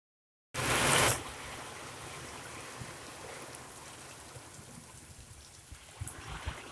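Steady rain falling, as an even hiss with scattered drips and taps. About half a second in there is a brief, much louder rush of noise, then the rain carries on at a lower level with a few soft low knocks near the end.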